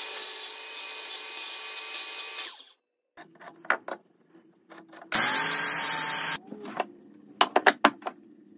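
Sliding miter saw running and cutting into pine, stopping sharply about two and a half seconds in. Then light taps, a second short burst of a power tool about five seconds in, and several sharp knocks of wooden blocks set on the bench near the end.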